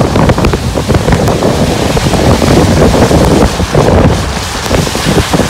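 Wind buffeting the microphone of a camera on a moving bike: a loud, unsteady rush that swells and dips.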